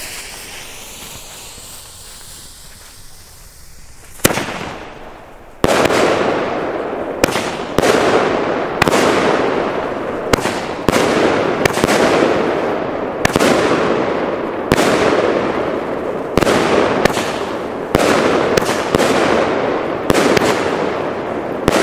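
A 25 mm firework battery (Pyro Moravia Halloween skeleton cake) firing: after a quieter first few seconds it starts about four seconds in, then shoots a rapid string of shots, one to two a second, each a sharp report followed by a rushing, crackling tail.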